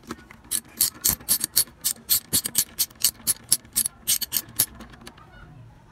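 A ratchet wrench clicking steadily, about four clicks a second, as it works a bolt loose under the motorcycle's airbox. The clicking stops about four and a half seconds in.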